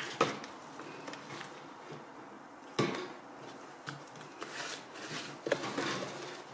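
Handling sounds from a plastic desk fan as its blade cap is tightened and the fan is handled: light clicks and scrapes, with one sharper knock about three seconds in and smaller knocks near the start and later.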